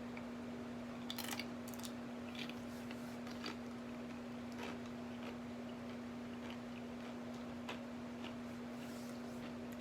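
A steady low hum with scattered faint clicks and small taps over it, a short cluster of them about a second in.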